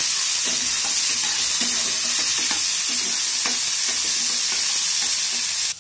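Onions and green peas sizzling in hot oil in a non-stick kadai while a flat spatula stirs them, its strokes scraping and ticking against the pan over the steady sizzle. The sizzle cuts off suddenly at the very end.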